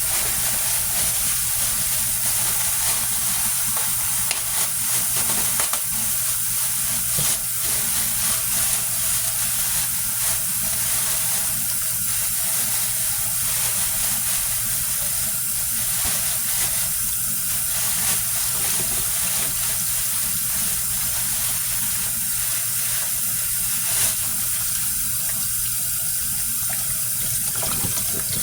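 Kitchen faucet running steadily into the sink while raw chicken wings are rinsed under it. A few small knocks sound over the water, the clearest about seven seconds and twenty-four seconds in.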